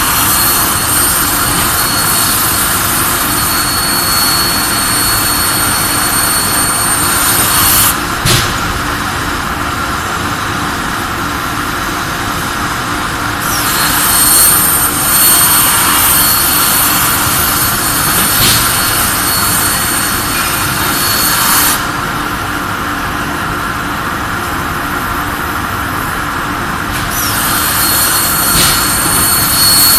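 CNC plasma cutter cutting, its arc and air jet giving a loud hiss with a thin high whistle, starting and stopping in runs of several seconds: on for about eight seconds, off for several, on again about 13 seconds in for about eight seconds, and again near the end, over a steady machine-shop drone.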